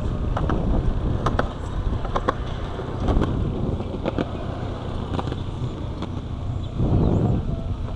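Wind rumbling on the microphone, with a few sharp clicks and taps scattered through it.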